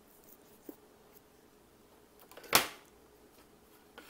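Quiet handling at a workbench, with one sharp knock about two and a half seconds in as the iPod and its plastic opening picks are moved on the desk.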